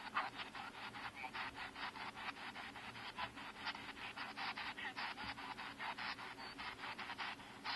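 A spirit box (radio-sweep ghost box) scanning through stations: a fast, even chopping of radio static and fragments, about six a second. The investigators take one fragment for the answer "Yes."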